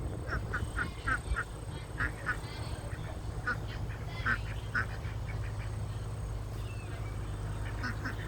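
Domestic ducks quacking softly in a quick series of short calls, which thin out after about five seconds.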